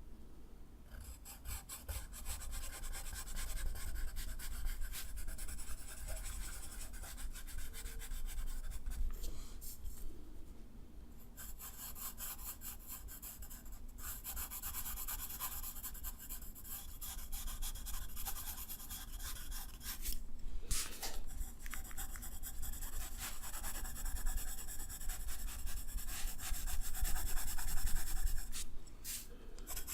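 A drawing tool scratching across drawing paper in quick, continuous strokes, stopping briefly a few times.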